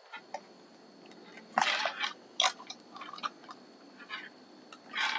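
Headphone retail box being handled and pried open: scattered rustles, crackles and small clicks of the packaging. The loudest come about a second and a half in and again near the end.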